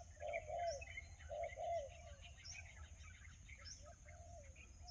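A dove cooing in short, arched, repeated notes, several in pairs during the first two seconds and fainter and sparser after, with small birds chirping higher up.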